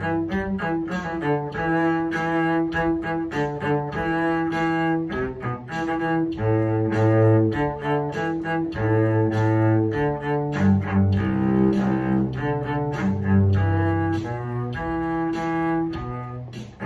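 Solo cello, bowed, playing one part of a string-orchestra piece alone at a steady 100 beats per minute: a line of separate notes, most lasting about a half to one beat.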